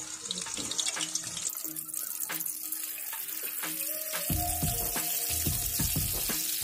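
Stuffed bitter gourds frying in hot oil in a karahi: a steady sizzling hiss with scattered crackles and pops, growing fuller about a second and a half in.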